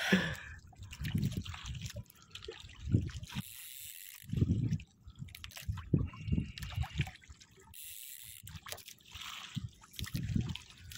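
Water sloshing and lapping against the hull and bamboo outrigger of a small boat, coming in irregular surges every second or two.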